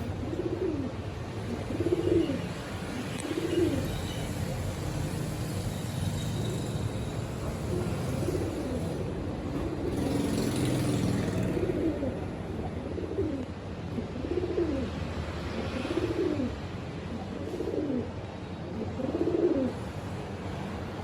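An animal calling over and over: short low calls that rise then fall in pitch, about one every one and a half seconds, over a steady low rumble.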